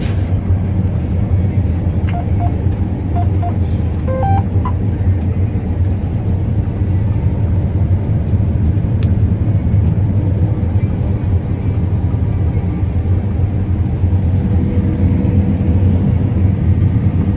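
Combine harvester running steadily while threshing soybeans: a loud, even low hum. A few short high beeps sound about two to five seconds in.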